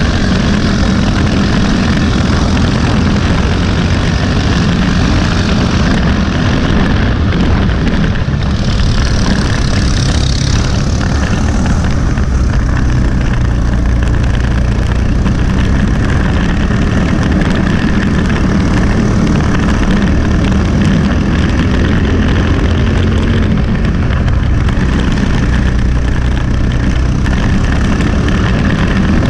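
Briggs & Stratton LO206 single-cylinder four-stroke kart engine running hard under racing load, heard from onboard the kart: a loud, steady engine note that shifts only slightly in pitch.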